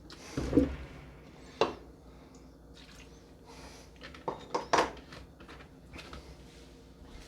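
Kitchen cookware being handled: a dull clunk about half a second in, a sharp knock near 1.6 s, then three quick knocks around the middle, like a measuring cup and pot being set down and knocked together.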